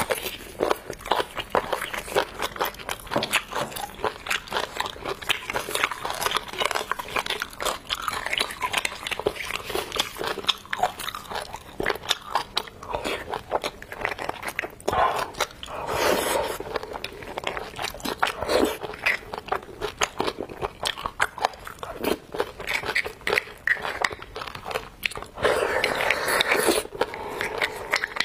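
Close-miked eating: a person biting and chewing braised beef bone marrow and meat, a dense run of wet mouth clicks and smacks.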